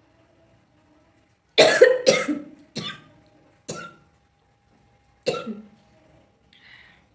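A person coughing in a fit of five harsh coughs, the first two the loudest, set off by the irritation of dry red chilli.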